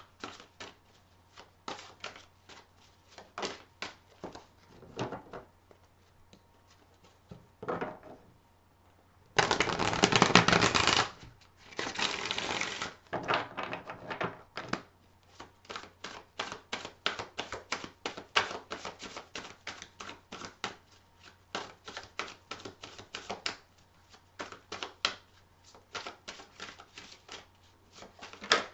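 A tarot deck being shuffled by hand: a run of light card clicks, sparse at first and then quick and even. About nine seconds in there is a louder rustling rush of cards lasting a couple of seconds, and a shorter one just after.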